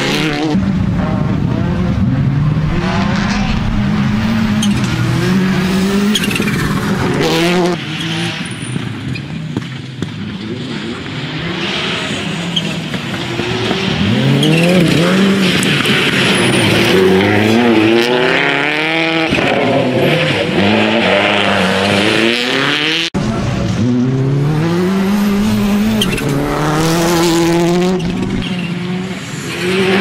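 Subaru Impreza WRC rally car's turbocharged flat-four engine revving hard at speed in several passes, its pitch climbing through each gear and dropping sharply on shifts and lifts. Tyres scrabble on the loose surface.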